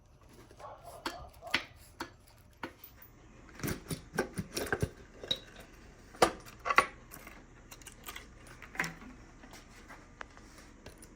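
Irregular metallic clinks and clanks of hand tools and engine parts being handled while an engine is being torn down, bunched into quick clusters with gaps between.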